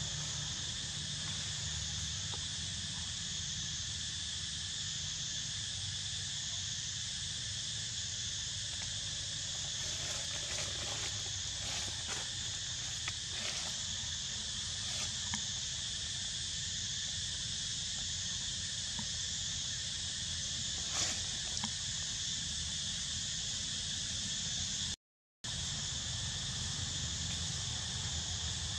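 Steady, high-pitched chorus of insects in the forest, with a low rumble underneath and a few faint ticks. The sound cuts out briefly near the end.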